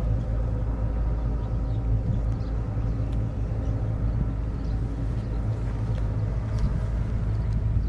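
An engine running steadily at idle: a low, even hum with a constant pitch.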